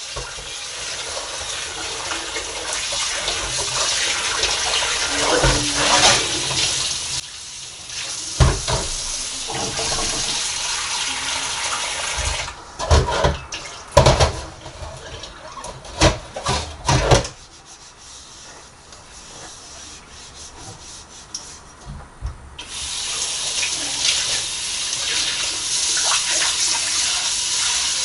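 Kitchen tap running into a sink while dishes are washed. Partway through, the water stops and dishes and utensils knock and clatter several times. The tap runs again near the end.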